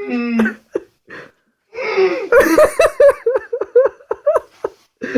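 A person laughing: a short voiced sound at the start, then from about two seconds in a run of rapid, evenly repeated ha-ha bursts lasting a couple of seconds.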